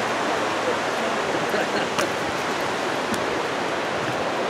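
Steady rush of flowing water from the creek and river below, with a couple of light knocks, the sharpest about two seconds in.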